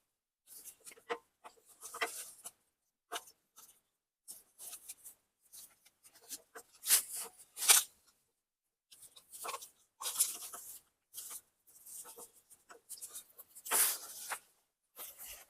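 Irregular scraping, rubbing and clicking of a steel PTO driveshaft yoke being worked back and forth onto a tractor's splined PTO stub while the splines are lined up. The sounds come in short bursts with pauses between them.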